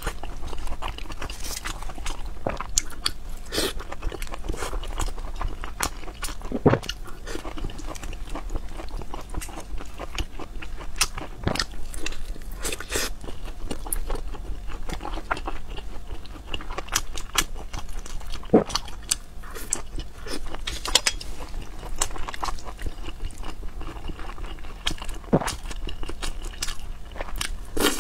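Close-miked eating sounds: a person biting and chewing braised food and fried rice, with irregular sharp mouth clicks throughout.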